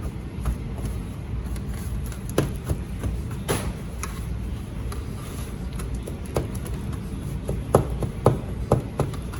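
Kitchen dish and utensils being handled on a counter: scattered light knocks and taps, a cluster of sharper ones near the end, over a steady low background rumble.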